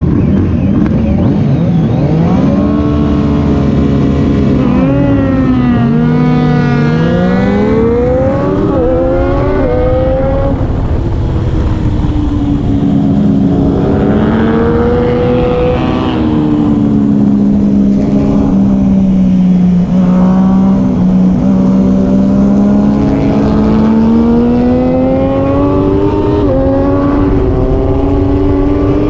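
Triumph Daytona 675R's inline-three engine at racing speed, its pitch rising and falling with throttle and gear changes and dropping sharply at each shift.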